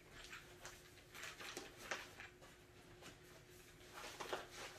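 Faint rustling and light clicks and knocks of someone moving about and handling small objects, over a faint steady hum.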